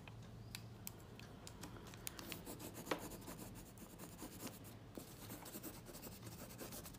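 Colored pencil scratching faintly on paper as a paper cutout is coloured in, with scattered light ticks.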